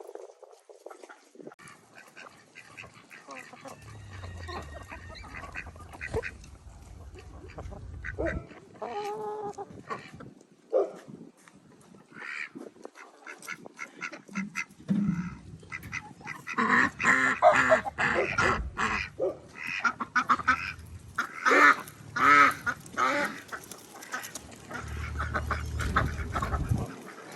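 Domestic waterfowl calling: a run of repeated short honks and quacks, growing busier and louder about halfway through.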